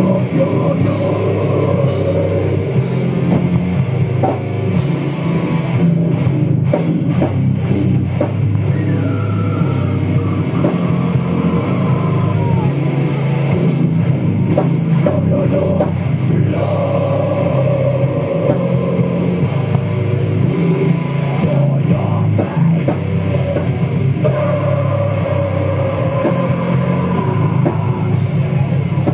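Heavy metal band playing live: distorted electric guitars and a drum kit, loud and continuous.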